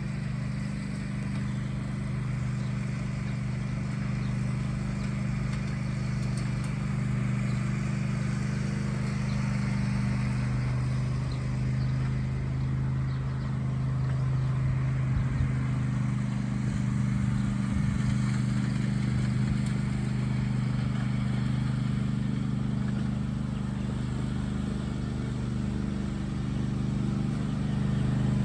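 Riding lawnmower engine running steadily at an even speed while the mower drives along, with a few faint knocks about halfway through.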